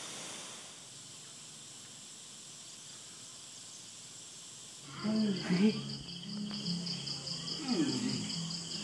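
A steady hiss, then from about five seconds in a fast, even, pulsing trill of night insects, crickets by the sound of it, with people's voices talking.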